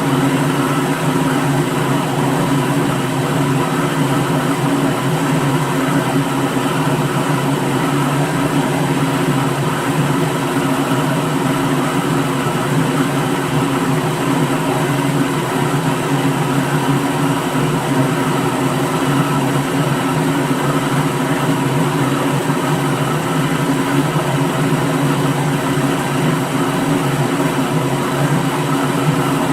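Electric blender motor running steadily at one constant speed: a continuous whir with a few steady hum tones in it, never changing in level or pitch.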